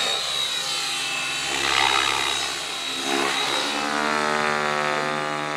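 Radio-controlled model helicopter in flight, manoeuvring. The pitch of its rotor and motor rises and falls as it changes attitude, and a thin high whine runs through the first part.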